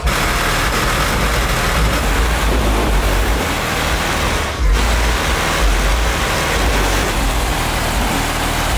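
Steady street noise of cars and traffic, with music underneath and a heavy low bass; the sound breaks off and changes about halfway through.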